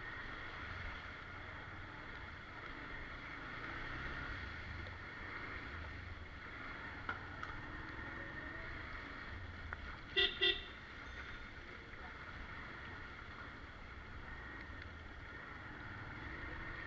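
A vehicle horn gives two short beeps in quick succession about ten seconds in, over steady street background noise.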